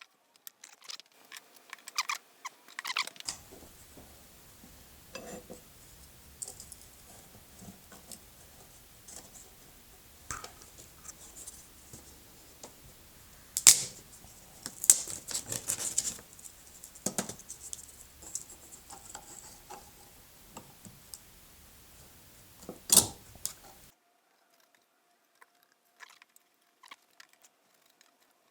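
Irregular small clicks, taps and crinkly rustles of small wooden workpieces and tools being handled at a workbench, with a few louder sharp snaps. It goes nearly quiet for the last few seconds.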